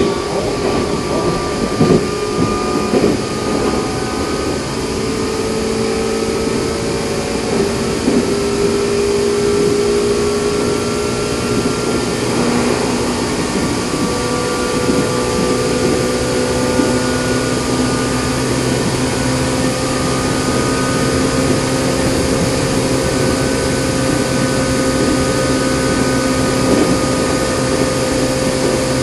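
Running sound of a Meitetsu 6000-series first-batch train with resistance control: a steady traction-motor hum that rises slowly in pitch as the train gathers speed.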